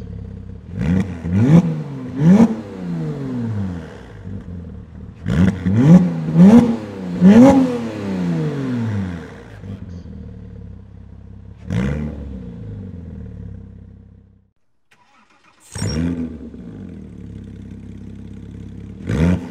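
Porsche Boxster/Cayman 987 flat-six through an EVOX ValveTronic exhaust with the valves closed. It makes quick throttle blips, each a sharp rise and fall in pitch, first three and then four, before settling to idle. After a second of silence the engine is heard with the valves open: a rev that settles into idle, then another blip near the end.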